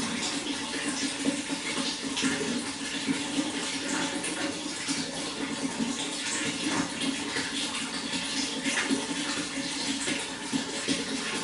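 Running water flowing and splashing steadily, with many small quick splashes in a continuous rush.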